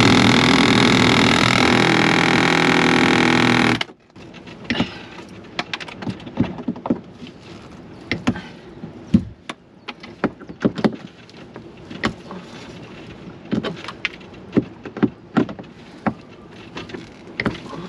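A power tool runs loudly and steadily for about four seconds, then cuts off suddenly. After that come scattered sharp knocks and taps at irregular intervals.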